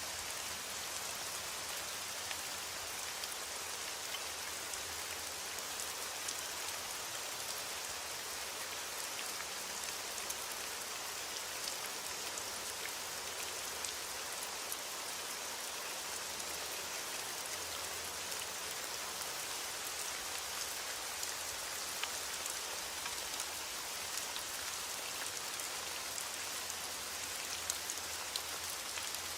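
Steady rain falling, with scattered individual drops ticking through the even hiss.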